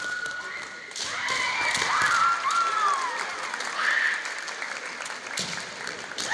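Kendo fencers shouting kiai: high, drawn-out cries that rise and fall, with sharp clacks of bamboo shinai and foot stamps on the wooden floor at the start and again near the end.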